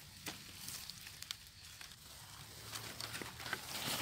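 Grass and leaves rustling and crackling as a hand pushes through undergrowth, with scattered small snaps, growing louder near the end.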